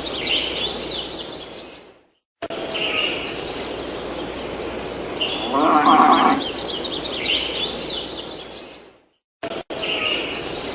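Looped farmyard ambience track: birds chirping, with one drawn-out low animal call like a cow's moo near the middle. The loop drops out to silence briefly twice and starts again.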